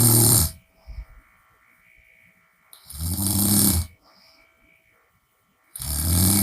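A woman snoring through an open mouth, with a low-pitched snore about every three seconds and each snore lasting about a second. One snore is just ending as the sound begins, one falls in the middle, and another starts near the end.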